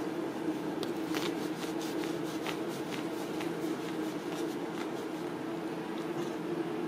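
Towel rubbing and rustling over a wet kitten's fur, in short scrubbing strokes that are busiest in the first few seconds, over a steady low hum.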